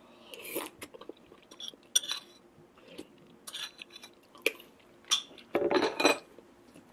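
A spoon clinking and scraping against a dish while scooping custard pudding: a handful of sharp separate clicks, with a longer scrape near the end.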